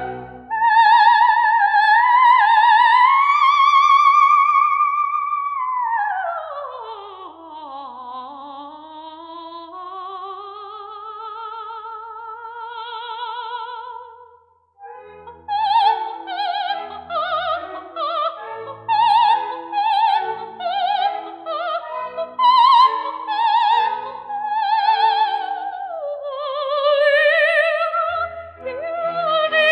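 Background music: an Italian operatic song with a voice in wide vibrato. The voice slides steeply down about six seconds in and climbs back, breaks off briefly around fifteen seconds, then sings quicker notes over an accompaniment.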